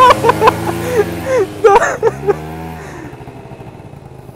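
Small scooter engine revved up and back down twice, then settling into steady running as the ride gets going. Short sharp yelping calls sound over it in the first two seconds.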